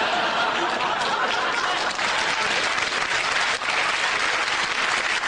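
Audience applauding steadily in response to a joke.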